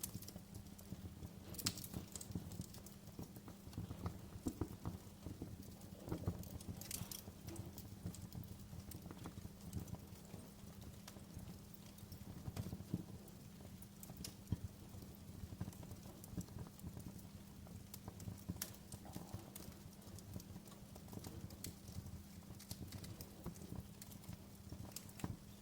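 Wood fire crackling in a fireplace: a steady low rumble of flame under frequent small snaps, with a few sharper pops, the clearest about two seconds in and about seven seconds in.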